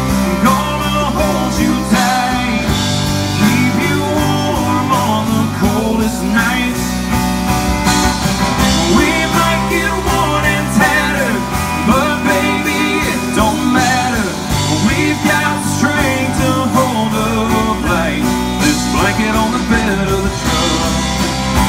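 Live country-rock band playing: a male lead singer singing over strummed acoustic guitar, electric guitars, bass and drums through a stage PA.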